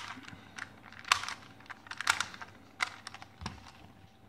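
Plastic Square-1 puzzle being turned by hand: its layers snap and click against each other in quick, irregular taps, a few loud ones among softer clicks.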